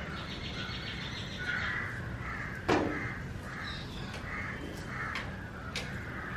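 Crows cawing repeatedly, with a single sharp click partway through and a few fainter ticks.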